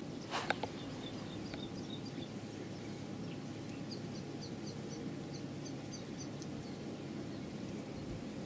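A small songbird singing faint, repeated short high chirps, starting a few seconds in, over a steady low background rumble. A couple of short clicks come just after the start.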